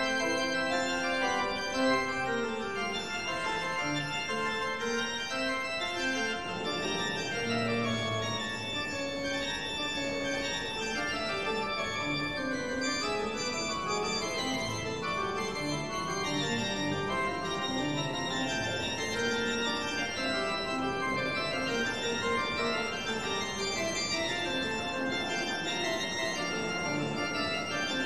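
Organ music playing held chords that change every second or so.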